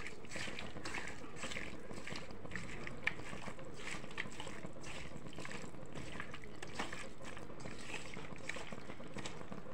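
A hand squishing and kneading raw chicken pieces in an oily, spiced onion marinade in a steel bowl: irregular wet squelches, two or three a second, with one sharper click about three seconds in.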